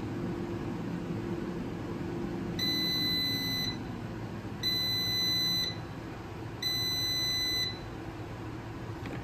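Crownful air fryer signalling the end of its cooking cycle: its fan hum winds down, falling in pitch, and it then sounds three high, one-second beeps about two seconds apart.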